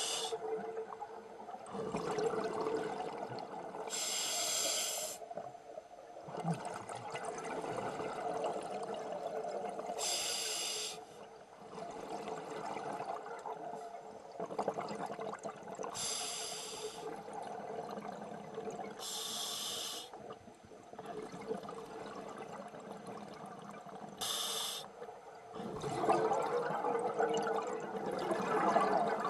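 Scuba diver breathing through a regulator underwater: a hissing inhalation about a second long every few seconds, with the bubbling rush of exhaled air in between.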